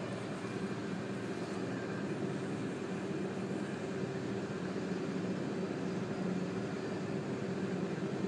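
Steady mechanical hum of a fan or similar motor running in the room, with a low, even drone and hiss.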